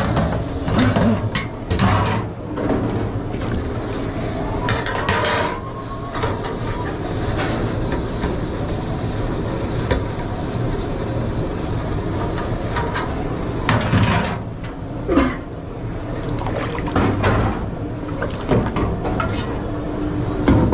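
Dishes and pots clattering at a commercial kitchen sink, with a water spray hissing for several seconds in the middle, over a steady low hum of kitchen machinery.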